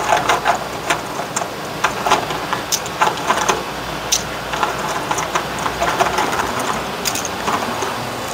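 Irregular light clicks and rustling of small parts being handled.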